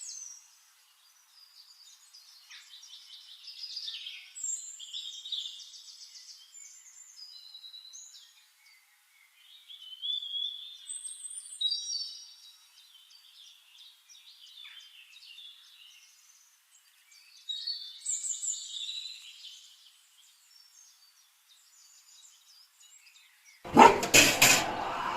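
Small birds chirping and trilling in quick, scattered calls. A sudden loud burst of noise breaks in near the end.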